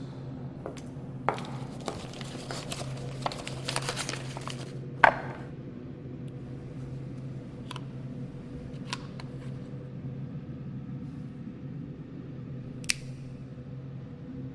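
A small hinged wooden box being handled and opened, and a USB flash drive taken out of it: scattered light clicks and rustling, with one sharp click about five seconds in and another near the end, over a steady low hum.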